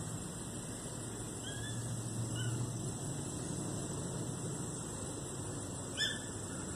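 Steady garden background of low hum and hiss, with a high steady whine above it and a few short, high chirps, the sharpest one near the end.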